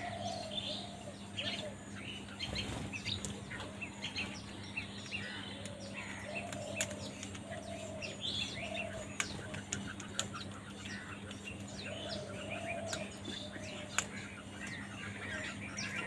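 Birds chirping over and over in short notes, with slower, lower calls now and then and a few sharp ticks that fit house crows' beaks pecking grain off concrete. A steady low hum runs underneath.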